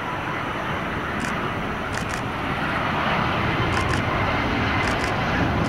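Boeing 777 airliner on final approach with gear down, its twin jet engines and airframe making a steady rushing roar that grows louder about halfway through as it passes closer. Short high ticks come in pairs now and then.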